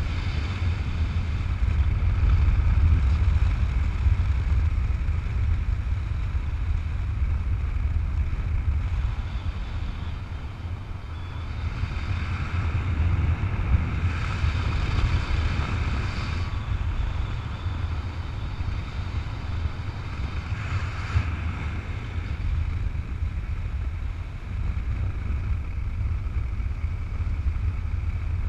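Wind rushing over the microphone in free flight under a paraglider, a steady low rumble that swells and eases at times.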